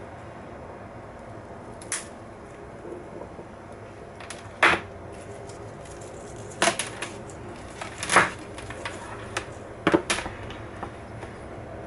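Laptop parts and tools being handled during a CPU swap. Sharp plastic-and-metal clicks and clacks come every second or two, about five clear knocks in all.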